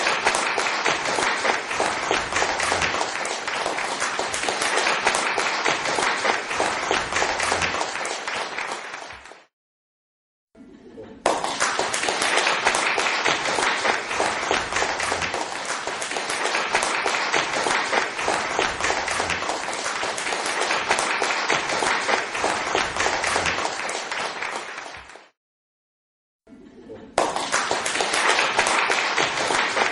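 Crowd applause: dense clapping of many hands. It starts abruptly, runs for about fourteen seconds and fades out, then repeats after a second of silence. A second gap comes near the end before it starts again.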